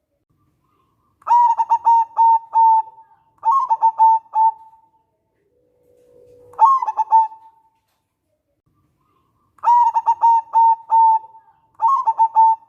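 Zebra dove (perkutut) of a local strain cooing: five short phrases, each a quick stuttering run of notes that ends in a held coo, with pauses of about a second between them.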